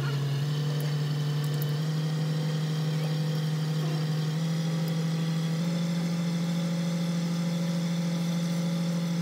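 A boat's engine running steadily, with a low hum whose pitch steps up slightly four times.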